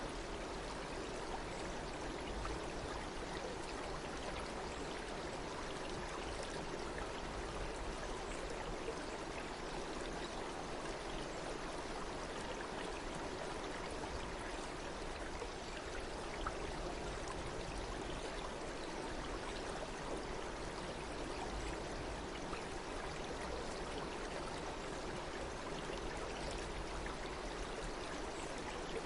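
A stream running steadily over rocks, an even rush of water with small splashes and trickles.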